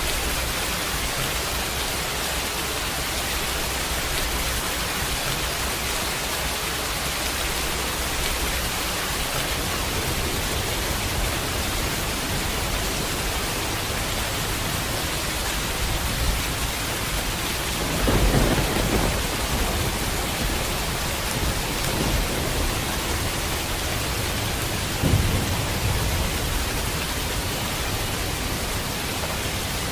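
Steady heavy rain hiss with thunder rumbling through it, the loudest roll about eighteen seconds in and a shorter one around twenty-five seconds.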